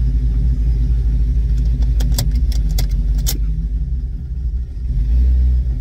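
Hemi V8 race truck's engine and exhaust droning low and steady, heard inside the cab while driving, swelling louder near the end. A few sharp clicks come about two seconds in.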